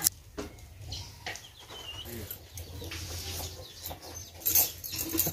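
Chickens clucking faintly in the background, with a few soft knocks.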